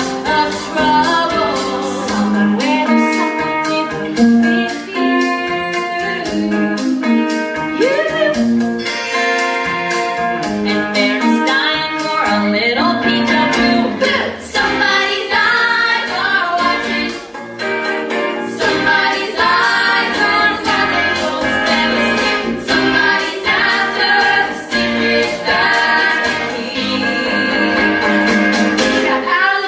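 High school musical-theatre cast singing a group number with instrumental accompaniment.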